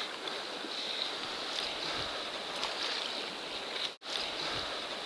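Steady rush of flowing river water, cutting out for an instant about four seconds in.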